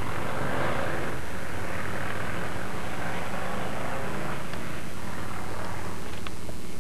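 Steady low engine drone with a hiss above it, unchanging throughout, and a couple of faint clicks in the second half.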